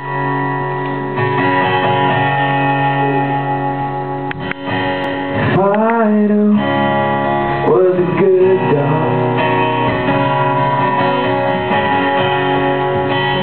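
An acoustic guitar is strummed in a steady song intro. A man's voice sings two short phrases around the middle.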